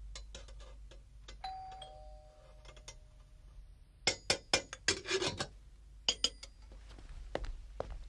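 Two-tone doorbell chime, a higher note followed about half a second later by a lower one, ringing about a second and a half in. A couple of seconds later comes a quick run of sharp knocks and clicks.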